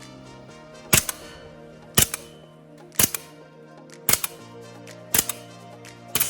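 Gas blowback airsoft M1 Garand rifle fired semi-automatically, six shots about a second apart, each a sharp crack with the bolt's recoil. Background music plays underneath.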